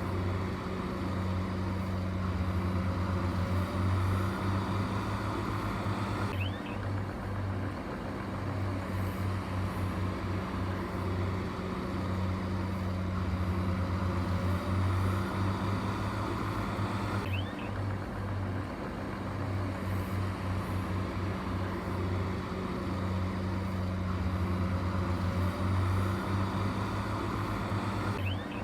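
Heavy earthmoving machine's diesel engine running steadily with a low, even drone. The sound changes abruptly about every eleven seconds.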